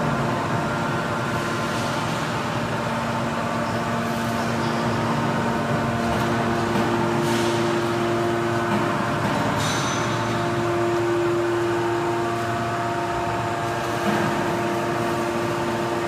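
Hydraulic power unit of a 500-ton metal baler running steadily: a constant mechanical hum with several held tones, the lowest of which drops out about halfway through, and a few faint brief hisses.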